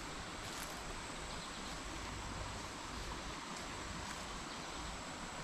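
Steady outdoor ambience: an even hiss over a low rumble, with a thin steady high tone and a few faint ticks.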